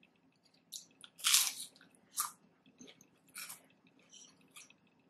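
A person biting and chewing crunchy tortilla chips from chicken nachos: a string of irregular crunches, the loudest about a second and a half in.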